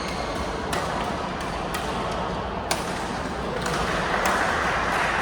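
Basketball game: the ball bouncing and sharp knocks from play over a steady crowd murmur that grows louder about two-thirds of the way in.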